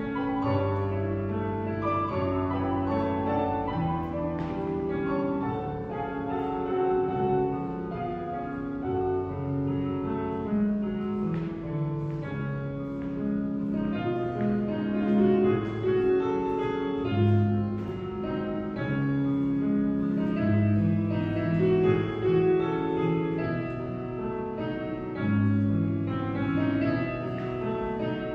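Instrumental piano music, a flowing melody of held notes over a low bass line.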